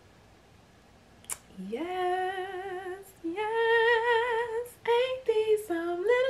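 A woman singing a short melodic phrase after a second or so of quiet. A note slides up and is held with vibrato, then a higher note is held, then a few shorter notes follow.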